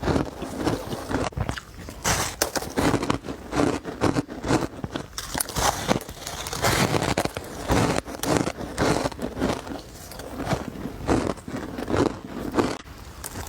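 Close-miked crunching of powdery ice chunks being bitten and chewed, a quick run of irregular crackly crunches several times a second.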